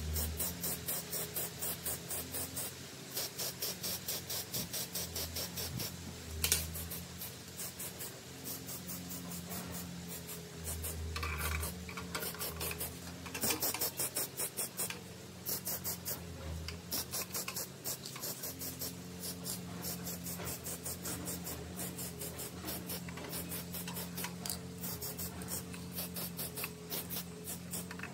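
Rhythmic scratching and rubbing of cast vise parts being handled and fitted together, about four or five strokes a second, over a low steady hum, with one sharp knock about six seconds in.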